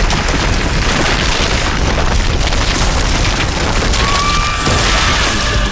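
Loud, rough rumbling rush of noise from an off-road UAZ 4x4 pushing through dry reeds at close range. A faint steady whine comes in about four seconds in.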